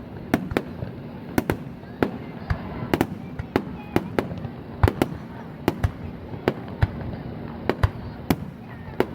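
Fireworks shells bursting in a rapid, irregular barrage of sharp bangs, about two or three a second.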